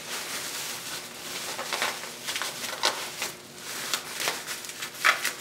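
Plastic bubble wrap rustling and crackling as it is folded and pressed by hand around a glass bowl, with irregular sharp crinkles, a few louder ones about two to three seconds in and near the end.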